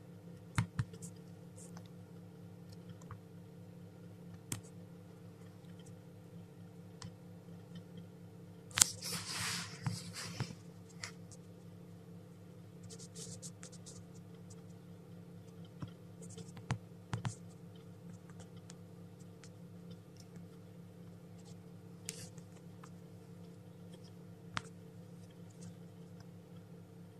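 Steady low hum of an egg incubator, with scattered faint clicks and taps and a brief scratchy rustle about nine seconds in.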